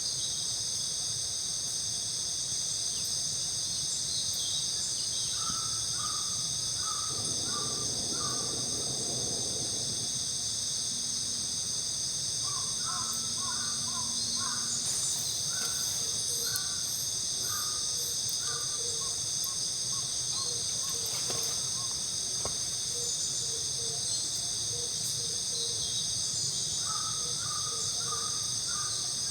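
A steady chorus of insects buzzing throughout, with a bird calling in groups of short repeated notes several times.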